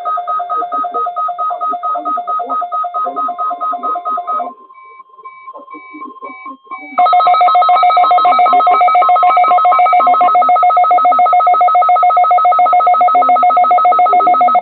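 Weather radio receiver's alert alarm beeping rapidly and loudly in a two-tone pattern, set off by a weekly test of the NOAA Weather Radio warning alarm tone. It breaks off for about two seconds midway, where the broadcast's steady alarm tone is heard faintly, then comes back louder.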